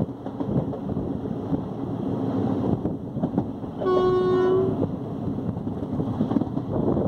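Express train running with a steady rumble and clatter. About four seconds in, a train horn sounds one short, steady blast lasting under a second.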